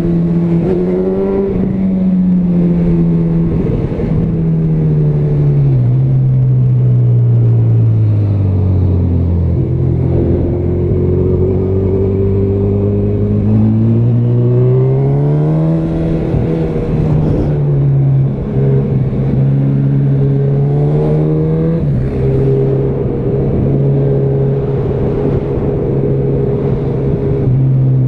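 Honda CB1000R's inline-four engine, fitted with a Yoshimura exhaust, running on the road. The engine note drops as the bike slows about seven seconds in, rises again as it accelerates around fifteen seconds, then holds steady at cruising revs, with a steady rush of wind noise underneath.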